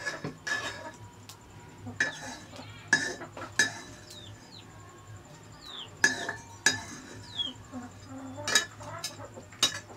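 A metal spoon scraping and clinking against a metal pot of cooked rice and its metal lid, in about ten irregular sharp clinks with a short ring.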